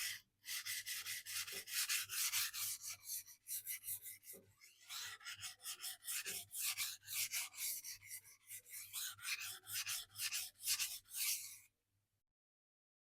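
A knife blade rasping back and forth on a 400 grit sintered diamond sharpening stone in a steady run of quick strokes, steel scraping on the abrasive, stopping abruptly near the end.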